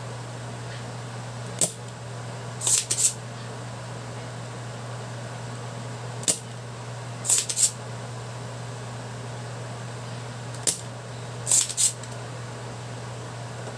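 Spring-loaded desoldering pump working on the solder joints of an engine ECU circuit board. Three sharp snaps come about four and a half seconds apart, each followed about a second later by a brief double rasp as the pump is worked again. A steady low hum runs underneath.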